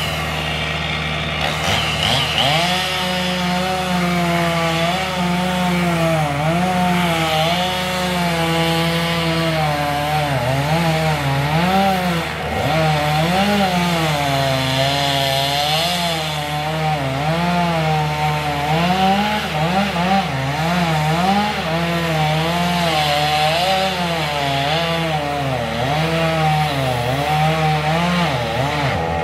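Two-stroke chainsaw cutting into a tree trunk. The engine's pitch rises and sags over and over as the chain bites under load, with a few brief sharp drops in engine speed.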